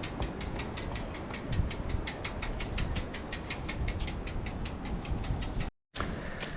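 Wind buffeting the microphone, with a fast, steady ticking of about seven ticks a second over it. The ticking cuts out briefly near the end.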